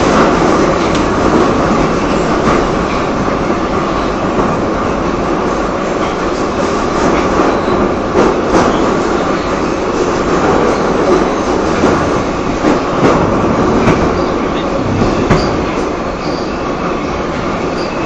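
Metro train running at speed, heard from inside the car: a loud, steady rumble of wheels and motors with scattered clicks from the rail joints.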